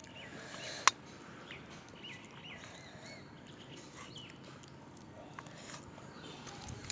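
Scattered short bird chirps over steady background noise, with one sharp click about a second in.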